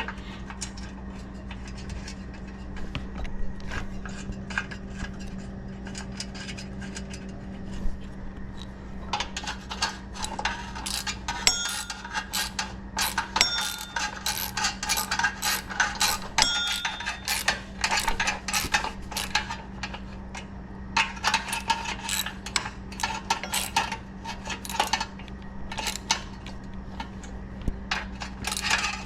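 Hand socket ratchet clicking in rapid runs as bolts are tightened down, with light metallic clinks; the clicking is sparse at first and becomes dense and louder about nine seconds in.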